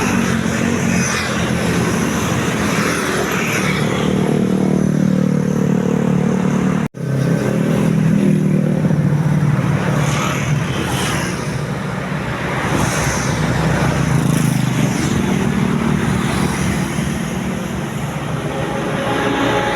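Roadside traffic: engines running as vehicles pass close by, one engine's pitch falling as it goes past about four to six seconds in. The sound drops out for an instant near seven seconds, then the traffic noise carries on.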